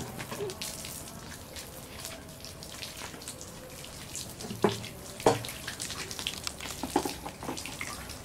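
Bonfire crackling: scattered small pops and snaps over a low hiss, with two louder knocks a little past the middle.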